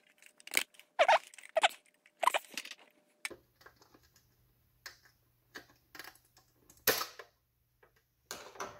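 Irregular light clicks and rustles of hands handling a plastic box and fine steel wire mesh strands. A faint steady low hum starts about a third of the way in.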